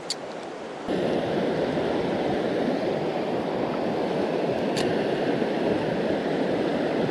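Shallow river riffle rushing over stones: a steady wash of running water that gets suddenly louder about a second in.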